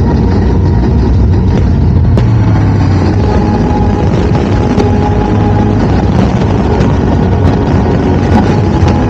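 Dense aerial fireworks barrage: a continuous deep rumble of many overlapping shell bursts, with sharp crackles growing thicker in the second half.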